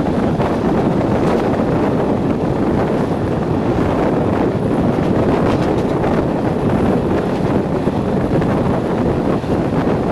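Steady wind rushing over a microphone held out of the window of a moving train, mixed with the train's running noise.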